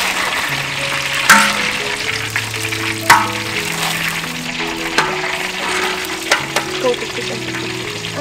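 Food sizzling and being stirred in a pan, with a few sharp knocks, over background music.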